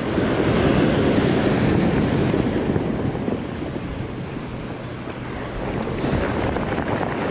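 Shallow surf foaming in over a stony shore, with wind buffeting the microphone; the wash is loudest in the first few seconds and then eases.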